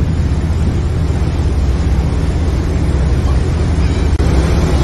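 Steady low rumble of a small passenger boat under way: its engine running with the wake churning behind it, and wind on the microphone.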